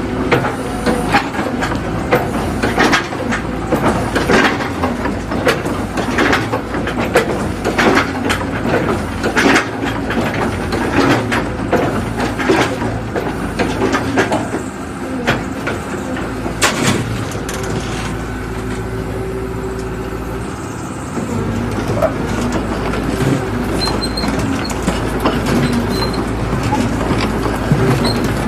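Cat 313D2 GC excavator running, its diesel engine humming steadily under frequent sharp clanks and knocks through the first half. The clanks thin out in the second half, leaving steadier engine running.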